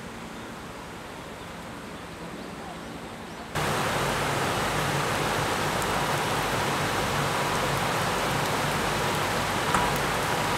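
Steady rushing of a swollen, muddy river in flood, starting abruptly about three and a half seconds in. Before that, a quieter, even outdoor ambience.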